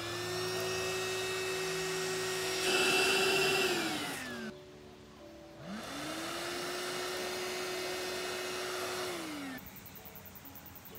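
Small handheld vacuum cleaner switched on twice to suck vine hoppers off a vine. Each time its motor whines up to a steady pitch, runs for a few seconds and winds down, and the first run gets louder and rougher near its end.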